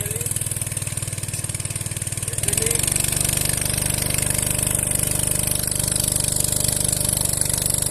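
Small engine of a pump set running steadily while dewatering a fish pond, with an even firing beat; it gets louder about two and a half seconds in.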